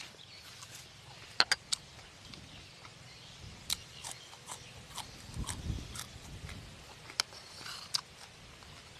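Crunchy food being bitten and chewed close to the microphone: a scattering of sharp crisp cracks, with a low muffled chewing rumble a little past the middle.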